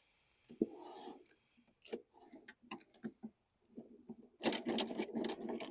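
Scattered clicks and knocks of metal mower parts being handled, then a dense rattling clatter for about a second near the end.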